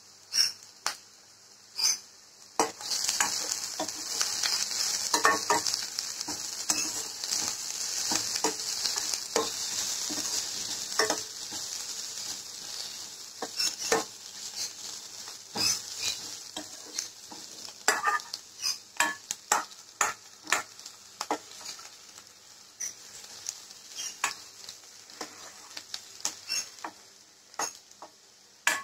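Chopped onions with mustard seeds and curry leaves sizzling in hot oil in a stainless steel pan, stirred with a steel ladle that scrapes and clinks against the pan. The sizzle starts about three seconds in and gradually dies down, while the ladle keeps clicking against the pan.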